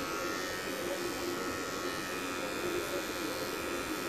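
Wahl electric hair clipper running with a steady buzz, its blade edging the front hairline.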